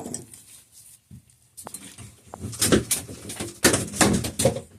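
Hand tools working a bolt on a mountain-bike rear shock: irregular metallic clicks, knocks and clatter. They come sparsely at first and grow dense and loud in the second half.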